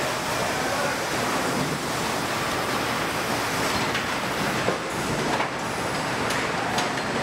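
Car assembly plant floor noise: a steady mechanical din from the line and its machinery, with a few scattered clanks and clicks from tools and parts.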